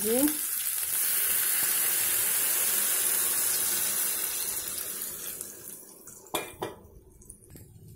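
Juice being poured into a pot of hot oil and fried fish pieces, hissing and sizzling steadily as the liquid hits the hot fat. The sizzle dies away over about five seconds, followed by two short knocks.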